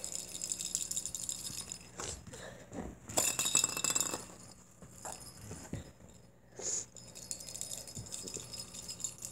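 Small red cat-toy ball with a bell inside, jingling and rattling as it is shaken. The rattle is loudest about three to four seconds in.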